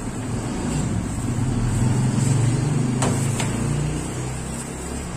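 A low engine hum that swells and then fades, with two sharp clicks a little after three seconds in.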